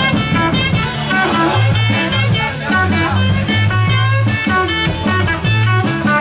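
Live band playing an instrumental stretch of a blues song: electric guitar over a steady electric bass line and drum kit.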